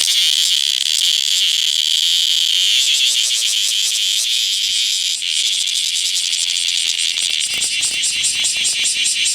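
Bear cicada (Cryptotympana facialis) calling: a loud, high, rasping buzz that breaks into rapid, evenly spaced pulses from about seven seconds in.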